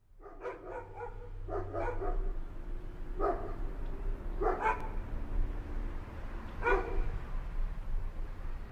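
A dog barking in short barks: two quick runs of about three barks, then single barks spaced a second or two apart, over a steady low hum.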